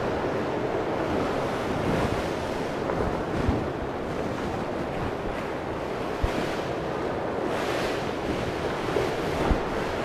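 Steady rushing noise of wind, with a few brief low thumps.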